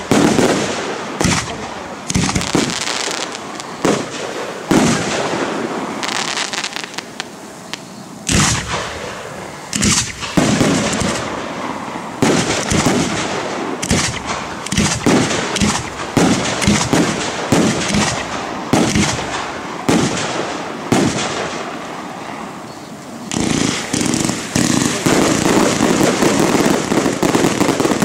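Aerial fireworks display: shell after shell bursting in sharp bangs, with two short lulls, then a dense barrage of rapid bangs over the last few seconds.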